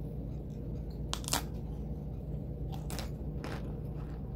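Close-up chewing of hard homemade cornstarch bites: crisp crunches, a pair about a second in (the loudest), then four more in the second half, over a steady low hum.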